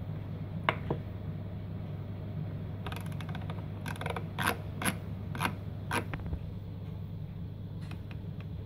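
Clicks from working the rotary browse knob and buttons of a Pioneer XDJ-RX DJ controller: a couple of single clicks, a quick run of them about three seconds in, then several more about half a second apart, over a steady low hum.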